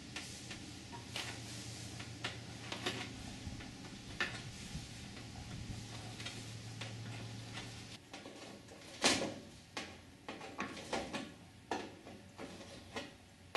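Hand deburring tool with a swivel blade scraping the edges of drilled rivet holes in an aluminium aircraft skin: an irregular string of short scrapes and clicks, with a louder one about nine seconds in.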